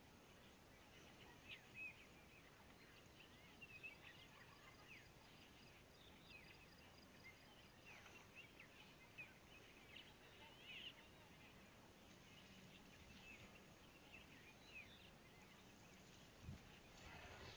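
Faint chorus of small birds, many short chirps and twitters scattered throughout over a low steady outdoor hiss. A brief low thump comes near the end.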